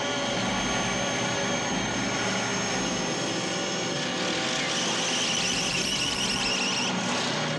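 Vehicle engines at high revs in a film chase soundtrack, a motorcycle and the V8 Interceptor running flat out together. From about four seconds in a shrill, fast-wavering whine is added on top, and it cuts off sharply just before the end.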